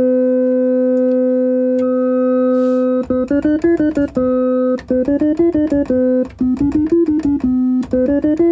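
Synthesizer demonstrating additive synthesis: a steady held tone, with extra waveforms layered in at the start and again about two seconds in so that it grows more complex. From about three seconds, quick runs of keyboard notes, falling back to the held low note between runs.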